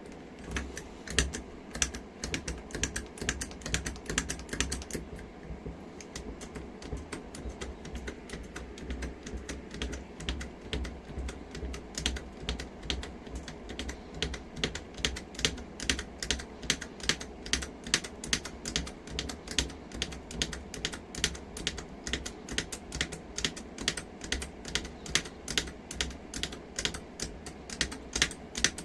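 Hydraulic jack being pumped: a long run of sharp clicks from the pump mechanism, growing faster and more even from about halfway, at roughly three clicks a second.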